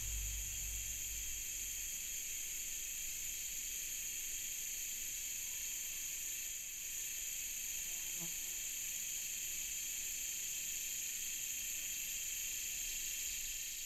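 Steady high-pitched hiss and buzz held in several even high bands, with a low rumble fading out within the first two seconds.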